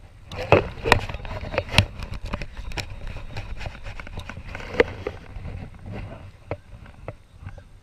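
Irregular knocks and clatter on the deck and hull of a small aluminium boat, with several sharp loud ones in the first five seconds. After that there are only a few scattered light clicks.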